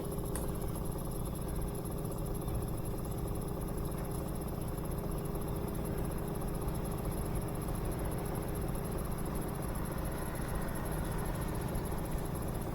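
A steady low mechanical hum with a few constant tones, and a faint click near the start.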